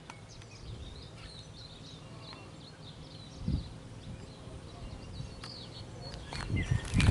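Small birds chirping and calling in short repeated phrases over a low outdoor rumble, with one brief low thump about three and a half seconds in.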